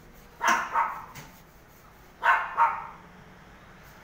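A dog barking: two quick barks, then two more about two seconds later.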